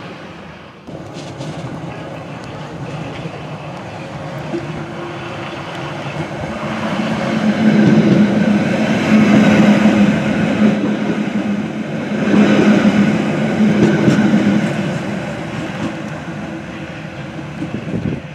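A Merseyrail Class 507/508 electric multiple unit runs past close by. It grows louder from a couple of seconds in and is loudest mid-way, with a steady hum from its electric motors under the rumble and clatter of the wheels on the rails. It fades as the train runs on along the platform.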